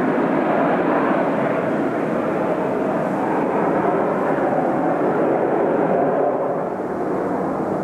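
Steady jet noise of Kawasaki T-4 trainers of the Blue Impulse team flying overhead, a loud even rushing that eases a little near the end.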